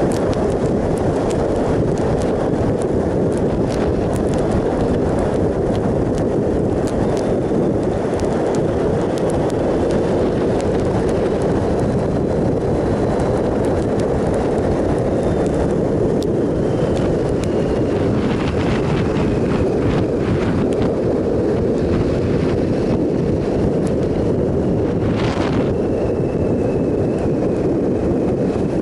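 Steady wind rush on the microphone of a 2007 Triumph Sprint ST 1050 motorcycle cruising at road speed, with the bike's three-cylinder engine running underneath.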